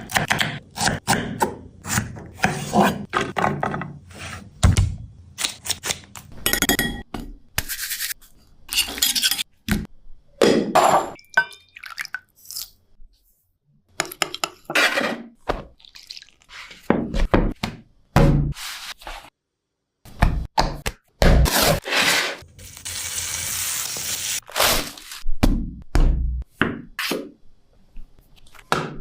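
A run of kitchen food-preparation sounds: irregular knocks, thunks and clinks of utensils and bowls, with a steady hiss lasting about three seconds about two-thirds of the way through.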